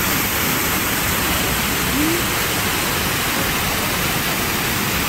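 Artificial waterfall, pumped water pouring down a rock face and splashing into a pool: a steady, even rush of falling water.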